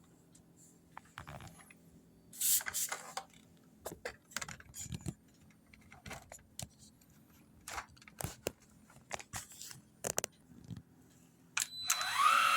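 Hard plastic parts of a cordless vacuum cleaner being handled and fitted together: a string of short clicks and snaps with a brief rustle. Near the end the vacuum's motor switches on and spins up with a rising whine.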